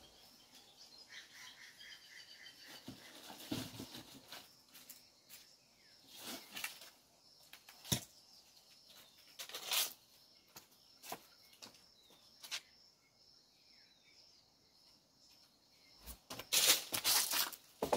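Scattered scuffs, knocks and rustling as a man picks things up off the ground to throw at a mango tree, with a louder burst of rustling near the end. A bird chirps briefly about a second in.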